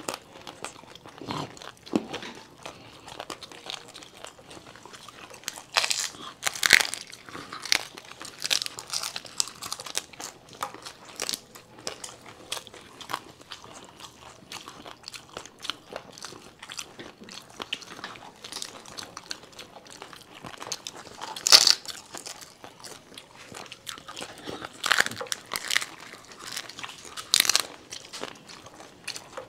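Crisp panipuri (golgappa) shells crunching as they are bitten into and chewed, in irregular crunches with the sharpest cracks about six, twenty-one and twenty-five seconds in.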